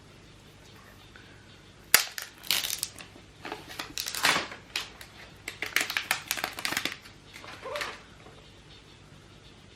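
Product packaging being handled and opened, making crinkling, crackling and tearing noises in irregular bursts. It starts with a sharp click about two seconds in and stops about eight seconds in.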